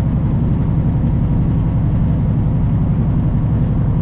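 Semi truck driving at a steady speed: a steady low drone of its diesel engine and road noise.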